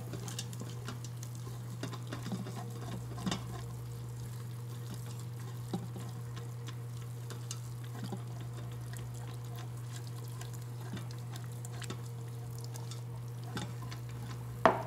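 Wire whisk stirring a roux and milk in a stainless steel pressure-cooker pot: soft scraping with scattered light clicks of the whisk against the pot wall and a faint sizzle, over a steady low hum. A sharper click comes near the end.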